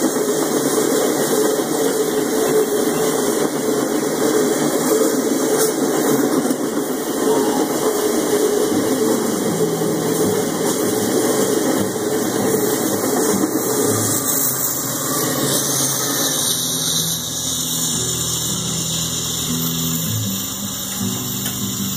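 Freight train's covered hopper cars rolling past close by: a loud steady rumble of steel wheels on the rails, with some wheel squeal. From about halfway through, the low steady drone of a diesel locomotive's engine comes in and grows toward the end.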